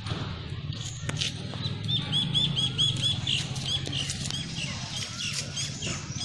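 A small animal chirping: a quick run of about eight high, repeated notes about two seconds in, with scattered short chirps around it. A steady low hum runs underneath.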